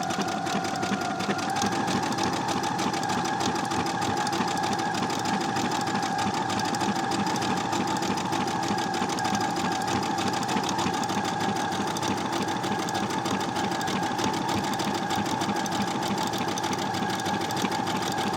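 Brother SQ9285 sewing machine running steadily at high speed, stitching an embroidery edge with rapid needle strokes; its motor hum steps up slightly in pitch about a second and a half in.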